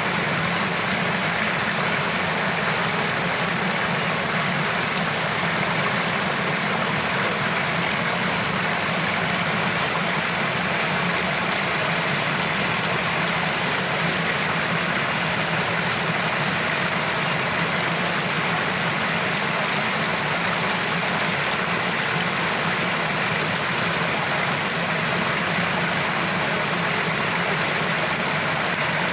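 Small waterfall: water falling and gurgling in a steady, unbroken rush.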